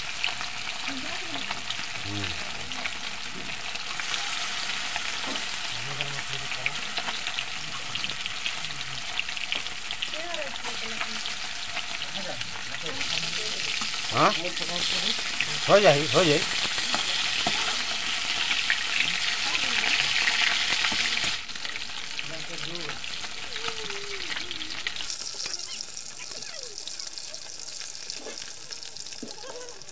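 Fish pieces sizzling as they fry in hot oil in an aluminium kadai: a steady hiss that swells through the middle and eases off in the last few seconds. Two brief louder sounds come about halfway through.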